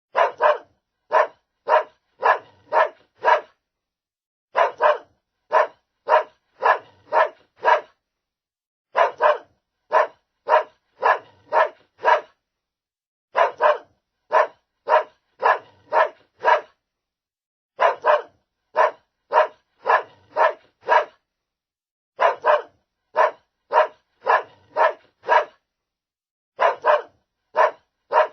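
Small dog barking in quick runs of about six short, sharp barks. Each run is followed by about a second of dead silence, and the pattern repeats about every four and a half seconds.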